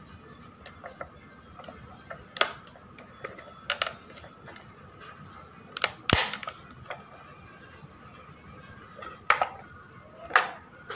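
Sharp plastic clicks and knocks from a handmade PVC miniature truck cab being handled and set down, about seven in all, irregularly spaced, the loudest about six seconds in. A faint steady tone runs underneath.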